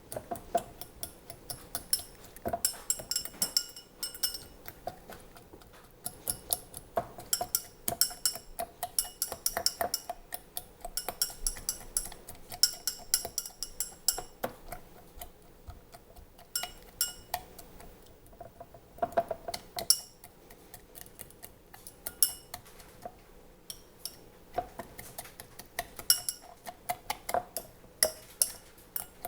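Rapid, irregular clinks and taps of hard objects, several a second, each with a short ringing tone, with brief lulls in the middle.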